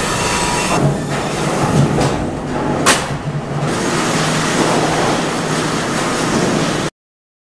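Sawmill lumber-handling conveyors running: a steady mechanical rumble and rattle of chains and boards, with a sharp knock about three seconds in. The sound cuts off abruptly near the end.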